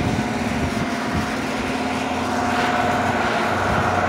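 Outdoor air-conditioner condenser units running: a steady hum with several constant tones, a higher whine joining about two and a half seconds in.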